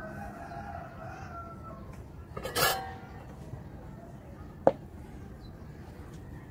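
A soldering iron and tools handled on a metal-cluttered workbench: a short ringing metallic clatter about two and a half seconds in, then one sharp click just before five seconds.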